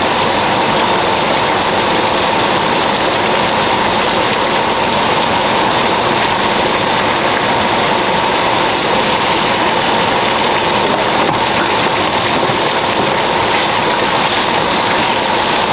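Pan of chicken curry boiling on the stove, a steady bubbling that does not let up.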